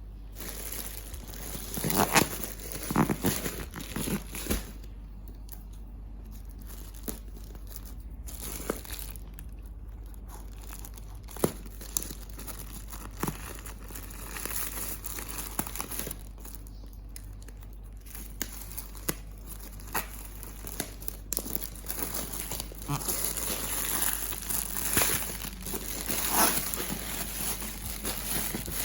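Packaging crinkling and rustling as a newborn baby mattress set is unboxed, with irregular crackles and small snaps, busier at the start and again near the end.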